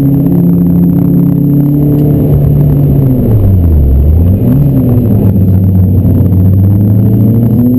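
Renault Clio 172's 2.0-litre four-cylinder engine heard from inside the cabin at track speed. The engine note drops away for about a second and a half from a couple of seconds in, as the car slows for the bend. It rises and falls once in a quick blip just past the middle, then holds low and starts to climb again near the end as the car accelerates.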